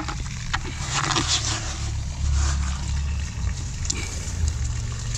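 A steady low motor hum, with scraping and crunching as a hand digs through wet sand and lumps of lime scale in a plastic bucket. The sediment was flushed out of a hot water storage tank.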